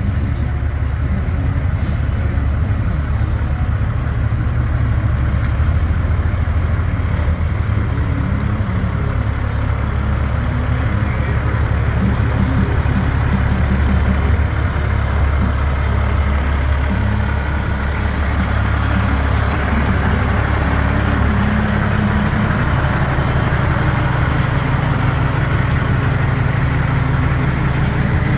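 Semi truck's diesel engine running at low speed, a steady deep rumble that shifts slightly in pitch a little past the middle as the big rig pulls slowly up alongside.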